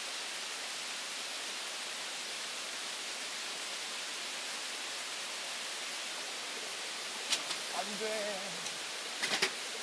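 Steady rushing of a nearby mountain stream. A few light clicks and a brief low voice sound come near the end.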